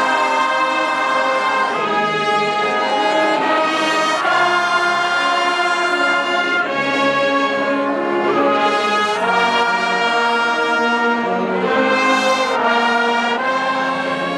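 Brass band playing a slow, solemn piece in sustained chords, trumpets and trombones holding notes that change every second or two.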